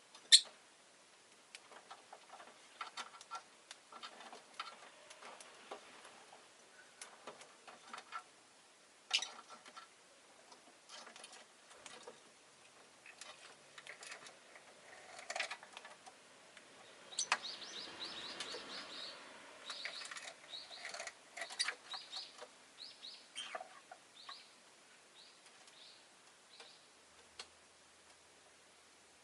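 Rosy-faced lovebird making short, scattered chirps mixed with small clicks and taps, with a quicker run of chirps about two-thirds of the way through.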